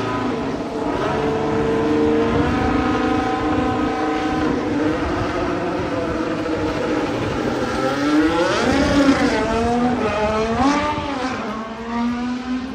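Formula 1 car's turbocharged V6 hybrid power unit running at high revs on track. Its pitch holds steady at first, then twice swells up and falls back near the end.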